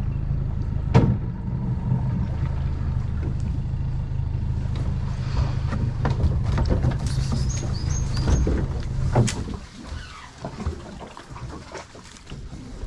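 Small boat's outboard motor idling steadily, then cut off about nine seconds in. A sharp knock about a second in, and scattered light knocks after the motor stops.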